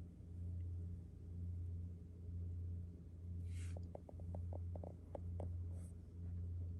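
Pet skunk snoring, a low rumble swelling and fading about once a second with each breath. About halfway through comes a short snuffling hiss, then a quick run of small clicks.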